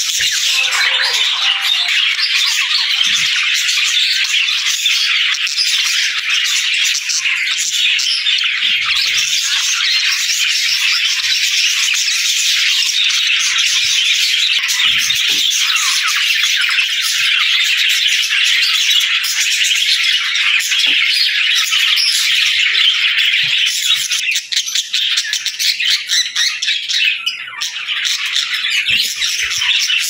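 A flock of budgerigars chattering and chirping, many birds calling over each other in a dense, continuous, loud warble. The chatter thins briefly a few seconds before the end.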